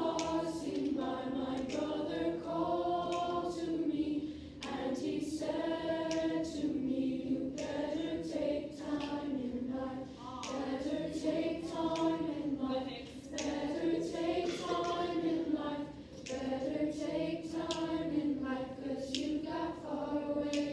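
School choir of teenage students singing together, in phrases of a few seconds whose pitch rises and falls, with brief breaks between phrases.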